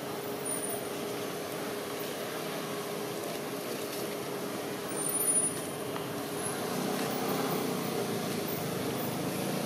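Steady drone of a running motor-vehicle engine, with a brief louder swell about five seconds in and growing fuller and louder over the last few seconds.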